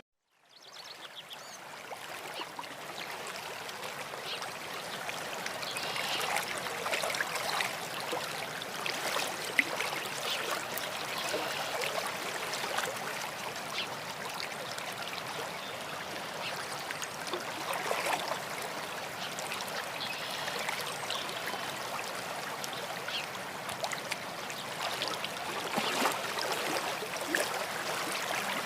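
A small stream of water trickling and gurgling steadily, with many little splashes; it fades in at the start.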